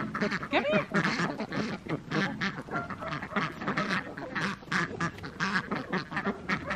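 A flock of ducks quacking in a rapid, continuous chatter, several calls a second, as the mixed flock of ducks and chickens crowds in to be fed grain.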